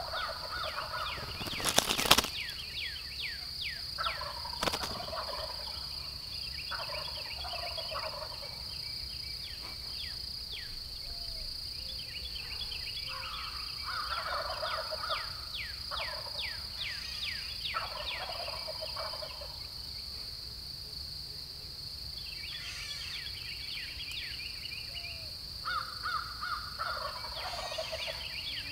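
Osceola wild turkeys gobbling again and again, about seven bouts, with quick high falling chirps and a steady high buzz behind them. A sharp knock about two seconds in, with a smaller one a few seconds later.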